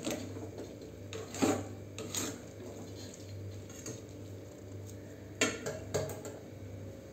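Spatula stirring grated carrots in a steel kadhai, scraping and knocking against the pan a few times, with a cluster of knocks near the end as it is set down in the pan. A steady low hum runs underneath.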